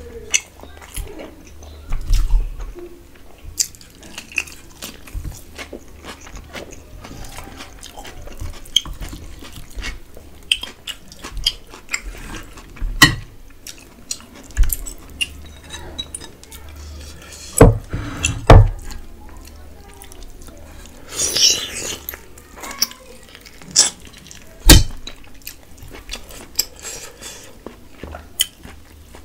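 Eating rice and duck curry by hand from a stainless steel plate: fingers squelching and mixing the rice, with many sharp clinks and knocks of hands and a ceramic bowl against the steel. Chewing and lip-smacking mouth sounds run between the clinks.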